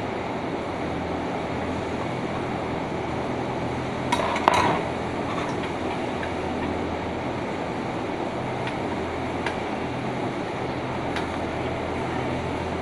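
Metal parts and tools clinking and knocking as the sharpener assembly is taken off a straight-knife cloth cutting machine. The loudest clatter comes about four seconds in, with a few lighter clicks later, over a steady machine hum.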